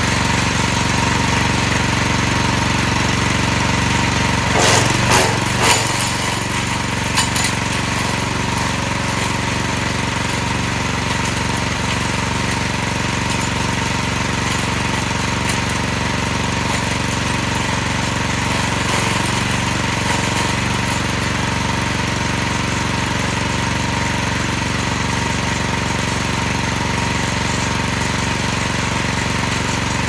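Forest Master FM6DD-MUL petrol wood chipper-shredder running steadily on its 6.5 hp four-stroke engine. Green branches are fed through the blades, giving a short burst of chopping and crackling about five seconds in and a little more around seven seconds.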